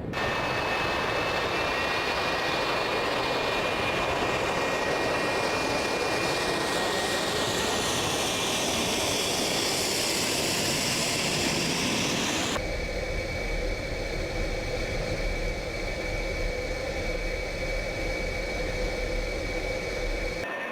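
F-4 Phantom II jet passing in a flyby, its engine noise with a sweeping, phasing hiss as it goes by. About two-thirds of the way through it cuts off abruptly to a quieter, steadier jet noise with a deep rumble.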